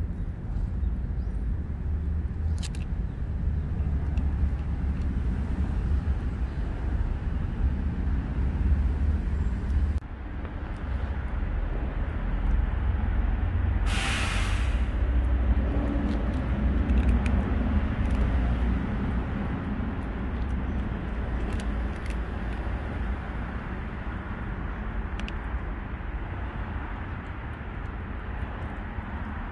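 Steady low outdoor rumble, with a single sharp hiss lasting about a second about halfway through.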